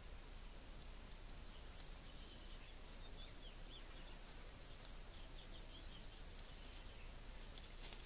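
Faint rural outdoor ambience: a steady high-pitched tone throughout, with a scattered run of faint, short bird chirps from about two to seven seconds in.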